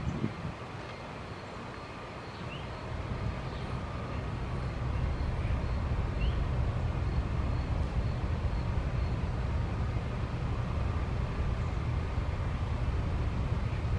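Low, steady rumble of a distant engine that grows louder about four seconds in and then holds. A faint high ticking repeats at an even pace above it, and two short high chirps come early on.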